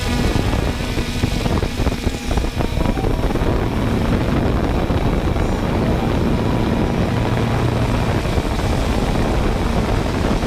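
3DR Solo quadcopter's electric motors and propellers running steadily in flight, a constant whirring hum with a few steady whining tones.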